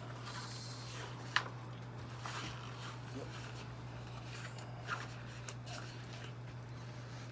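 Scattered small clicks and rustles of handling over a steady low hum, the sharpest click about a second and a half in and another near five seconds.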